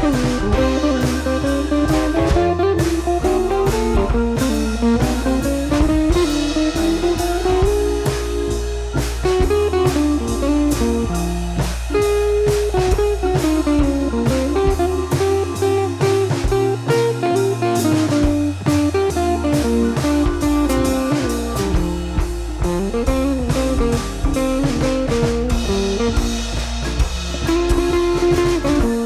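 Background music: a blues-style guitar melody over bass and drums.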